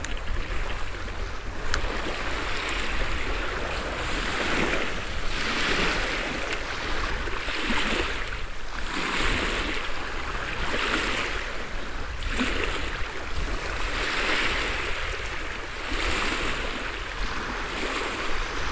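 Small waves lapping and washing over a pebble and shell shoreline, a hissing wash swelling and falling back every second or two, with a steady low rumble under it.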